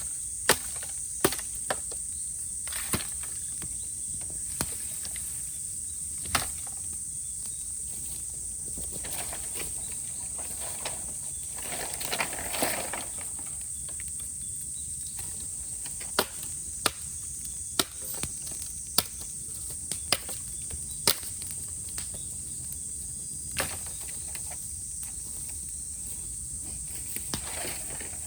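Cicadas calling in a steady, high-pitched chorus, with sharp crackles and pops from bamboo burning in a fire, scattered irregularly. A brief hissing swell comes about twelve seconds in.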